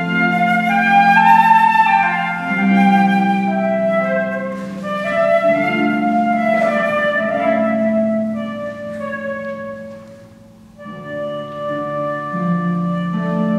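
Transverse flute playing a melody over a concert pedal harp accompaniment. The music eases to a brief lull about ten seconds in, then both resume.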